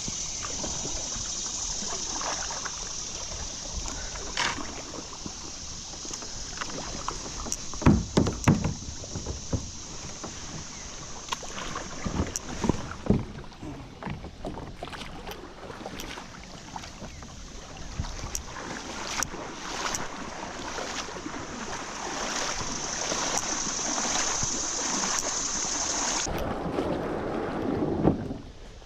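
A kayak on a fast-flowing creek: paddle splashes and irregular knocks against the hull, the loudest about 8, 12 and 28 seconds in, over a steady high hiss that comes and goes.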